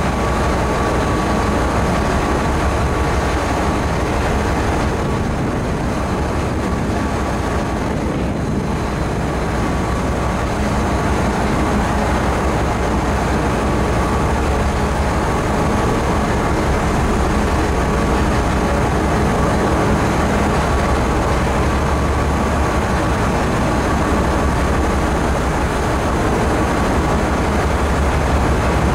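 A ferry underway: the steady drone of its engines, a low hum with a faint steady whine, mixed with an even rushing noise.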